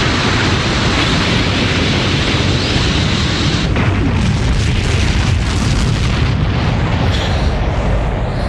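Cartoon explosion sound effect: a long, continuous blast with a deep rumble underneath. The hissing top of the blast drops away suddenly a little under four seconds in, leaving the rumble going.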